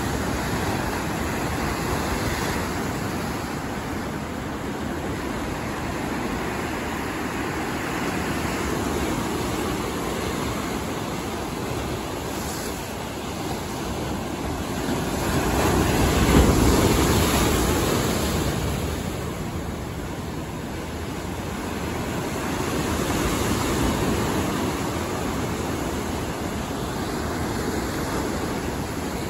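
Big closing-out surf breaking and washing ashore: a steady rush of water that grows louder for a couple of seconds a little past halfway, and swells again more gently near the end.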